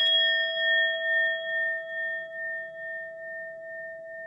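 A single bell-like chime struck once, then ringing out in several clear tones that fade slowly with a gentle wavering.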